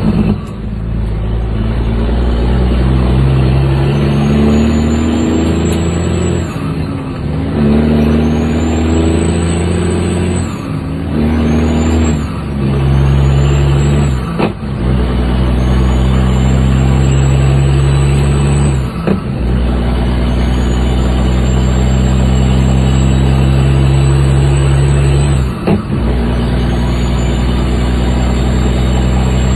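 Heavy truck diesel engine pulling hard through the gears of a manual transmission, heard inside the cab: the engine note climbs in each gear and dips briefly at each of about six gear changes. A high whistle rises with each gear and resets at every shift.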